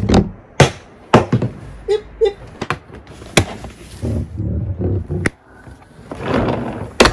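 Sharp knocks and clatter from the plastic parts of a Bosch ARM 37 electric lawnmower being handled during assembly, with rustling and scraping between the knocks and the loudest knock near the end.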